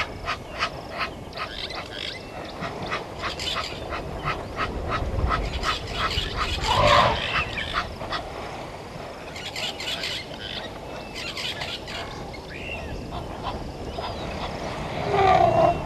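Honking animal calls, one louder wavering call about seven seconds in and another near the end, over runs of sharp rapid clicks in the first few seconds and again around ten seconds in.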